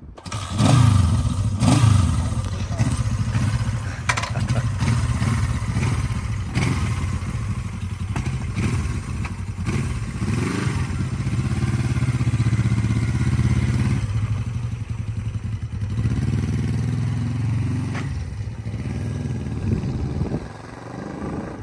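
Honda CL360's air-cooled 356 cc parallel-twin four-stroke engine catches right at the start and runs with a steady throb. It is blipped up in revs several times between idling stretches, then pulls away and fades near the end.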